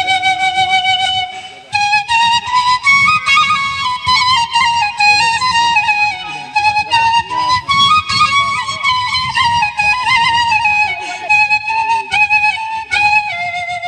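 Flute music: a solo flute plays a stepping, ornamented melody in a traditional folk style.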